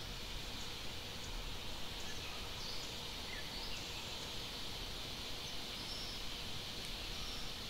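Outdoor ambience: a steady, high-pitched insect drone over a low rumble, with a few faint short chirps scattered through it.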